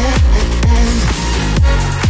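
Background electronic dance music with a pulsing kick drum, about two beats a second.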